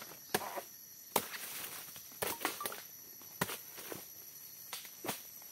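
Sharp, irregular knocks and cracks, about seven of them spaced from a fraction of a second to over a second apart: a man chopping and breaking dry palm stems and fronds while cutting out palm heart.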